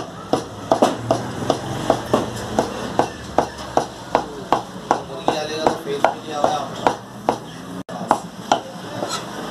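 Heavy steel meat cleaver chopping meat on a wooden stump block, a steady run of blows about two to three a second as the meat is hand-minced.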